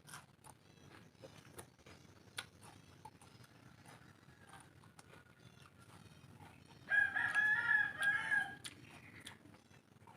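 A rooster crowing once, a call of about two seconds starting about seven seconds in, over faint scattered clicks.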